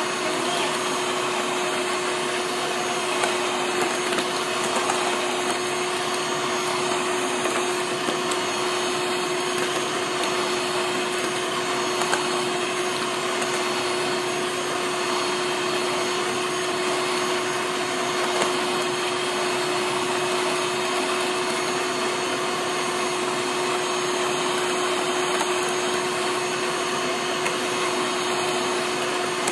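Electric hand mixer on its stand running steadily at one speed, its beaters whipping eggs in a stainless steel bowl until foamy: a constant motor drone with one steady tone.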